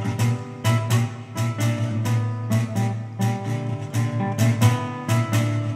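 Solo classical guitar playing a rhythmic run of struck chords, about two to three a second, over a bass held underneath.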